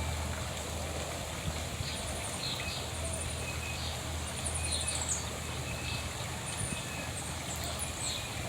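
Wild songbirds chirping, with many short high chirps and quick trills scattered through, over a steady low hum.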